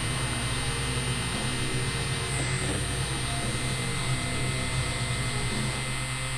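Tattoo machine running with a steady buzz as the needle works line work into the skin of a forearm.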